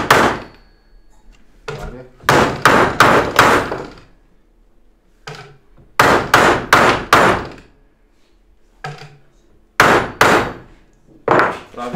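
Hammer blows on a bent steel reciprocating-saw blade, hammering it straight: sharp metallic strikes in quick bursts of three to five, with pauses of a second or two between the bursts.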